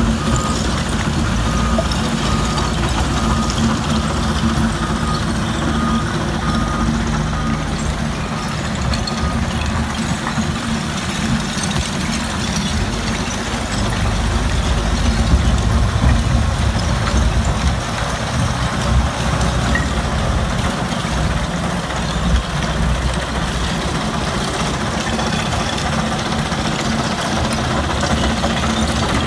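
Heavy diesel machinery running steadily: a wheel loader working beside a Powerscreen Warrior mobile rubble screener. A reversing alarm beeps repeatedly for the first several seconds.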